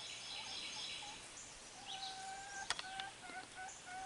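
Chickens clucking in a run of short, even-pitched notes from about two seconds in, over small songbirds chirping. A single sharp click sounds in the middle.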